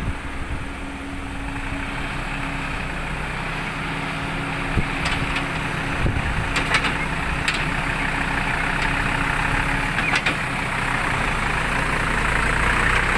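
Heavy diesel engines of an excavator and a loaded six-wheel dump truck running steadily, with a few sharp metal clanks through the middle. The engine noise grows louder near the end.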